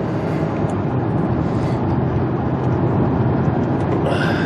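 Inside the cabin of a 2007 Lexus ES 350 on the move: steady tyre, road and engine noise, growing a little louder as the car picks up speed.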